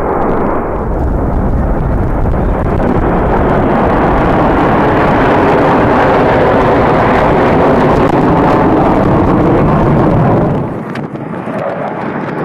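Jet engines of a formation of MiG-31BM interceptors roaring as they pass low overhead. The roar builds to its loudest in the middle and drops off abruptly about ten and a half seconds in.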